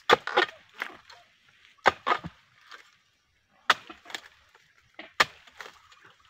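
Sharp chopping blows of a harvesting tool cutting into the stalks of a young oil palm's fronds and fruit bunches. The blows fall singly or in quick runs of two or three, about ten in all, with short pauses between.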